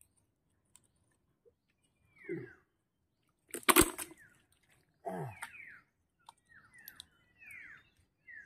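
Wet mud squelching and sucking now and then as a hand digs through mangrove mud for snails, with one sharp knock a little before the middle.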